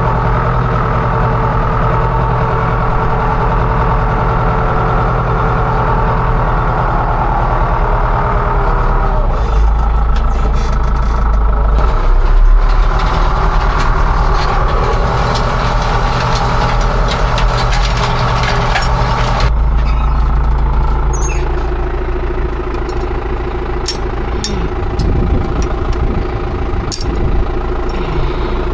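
Farm machine engine running steadily under work, with the tone of the engine changing abruptly twice. A few sharp clicks or knocks come near the end.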